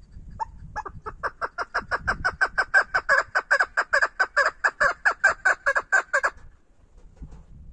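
Female chukar partridge calling: a few spaced clucking notes, then a fast run of notes at about six a second that stops abruptly about six seconds in.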